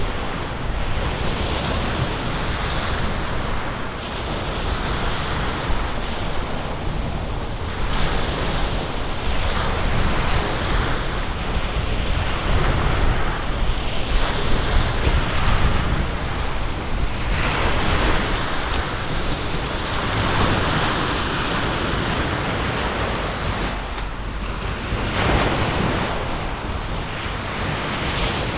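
Wind-driven waves on Lake Garda washing against the lakeside shore, swelling and easing every couple of seconds, with gusting wind rumbling on the microphone.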